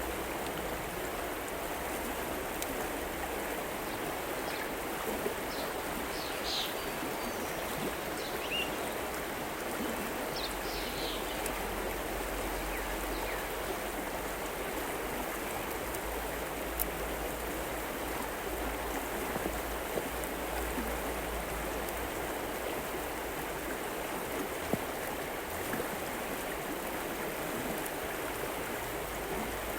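River water flowing steadily. A few short high chirps sound about a quarter to a third of the way through.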